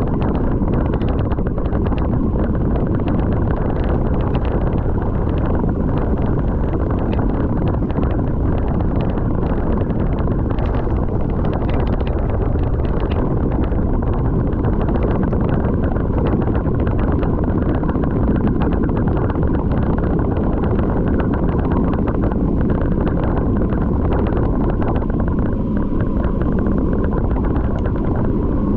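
Loud, steady wind buffeting the microphone, a dense rumbling rush without any clear tone.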